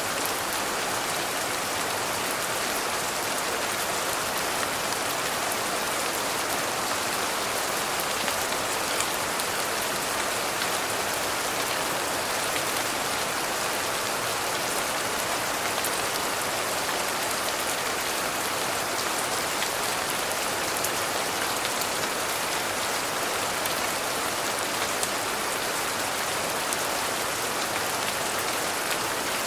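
Steady rain falling, an even hiss with fine ticks of individual drops, unchanging throughout.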